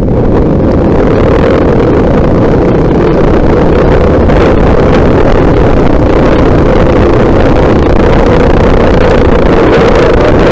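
Trail motorcycle engine running steadily while riding along, with wind rushing on the microphone.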